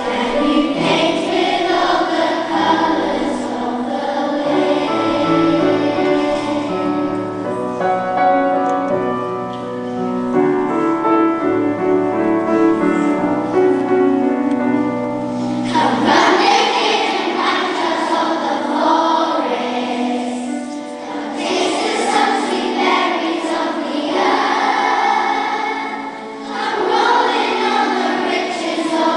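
A children's choir singing with a concert orchestra accompanying. About halfway through, the low bass notes drop out as a new phrase begins.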